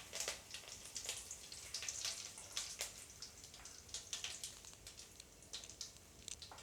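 Curry leaves and tempering spices (mustard seeds, urad dal, fenugreek, fennel) spluttering in hot sesame oil in a kadai: a faint, irregular patter of small crackles and pops.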